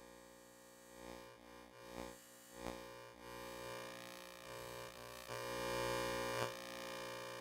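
Electromagnetic interference picked up by a homemade inductor-coil pickup, heard as a buzzing electrical hum with many steady overtones. It swells and drops abruptly several times with small clicks, as the coil moves near different devices.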